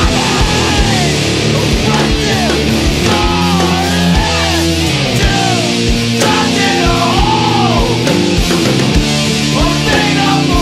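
Noisy post-hardcore rock band recording with heavy distorted electric guitars over bass and drums, loud and steady throughout. High notes repeatedly bend and slide up and down above the chords.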